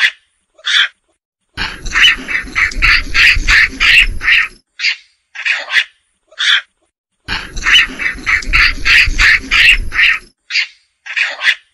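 Macaque chattering: a string of short, sharp, high-pitched calls, first scattered and then in dense rapid runs of roughly three calls a second. The same run of calls comes round again about six seconds later, as if the recording is looped.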